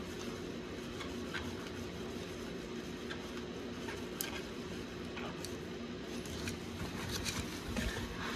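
Scattered light clicks and scrapes from a gloved hand turning a spin-on oil filter cartridge, over a steady low hum.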